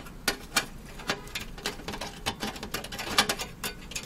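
Screwdriver working a metal motherboard standoff loose from a steel PC case: an irregular run of small metallic clicks and ticks, about three or four a second.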